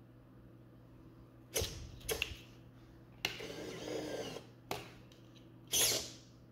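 Scale model tank's autoloader mechanism cycling: two sharp clicks, a motor whirring for about a second, another click, then a loud clunk near the end.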